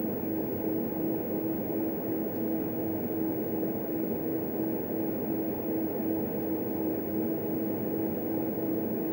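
HP 8568B spectrum analyzer running: a steady cooling-fan whir with a low hum tone that pulses about three times a second.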